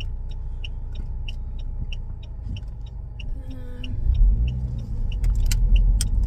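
Car interior: a rapid, even ticking from the dashboard, about three short high pips a second, over the car's engine. The engine gets louder about four seconds in as the car pulls away, and a few sharp clicks come near the end.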